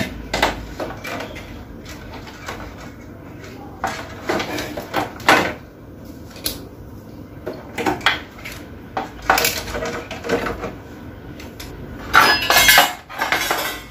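Scattered small clicks and light metallic clatter from hand tools desoldering push-button switches off a fan's circuit board, with a denser run of clicking near the end.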